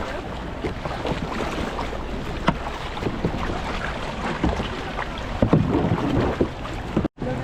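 Water splashing and sloshing around a kayak on the sea, with wind on the microphone. There are a few sharper splashes, the loudest about two and a half seconds in and around six seconds in. The sound cuts out for an instant near the end.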